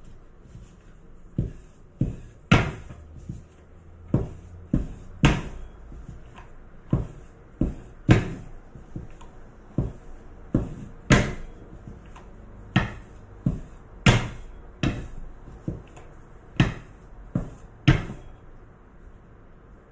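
Long thin wooden rolling pin knocking on a wooden board as dough is rolled out thin: irregular sharp knocks, about one a second, some much louder than others.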